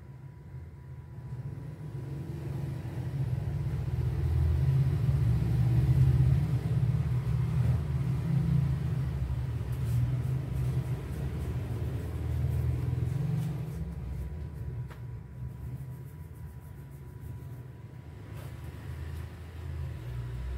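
A deep rumble builds over a few seconds, is loudest about six seconds in, then slowly fades, with a faint steady high tone under it.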